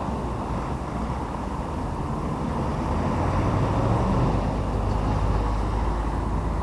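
Street traffic: a steady low rumble of motor vehicle engines running close by, swelling a little midway as one passes.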